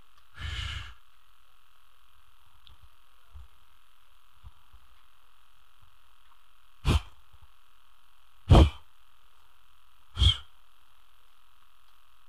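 Three short, forceful breaths blown into a handheld microphone, about a second and a half apart, over a steady hum from the sound system.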